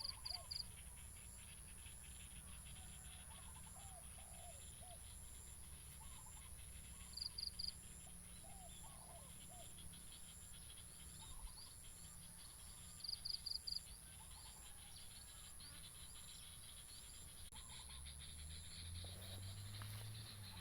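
Doves cooing softly in short, rising-and-falling notes, repeated every few seconds. Three times a small bird gives a brief, high three-note call, the loudest sound, over a steady high-pitched insect drone.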